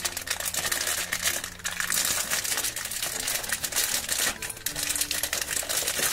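Clear plastic wrapper of a toy blind bag crinkling and crackling as fingers squeeze and work it open, an irregular stream of crackles.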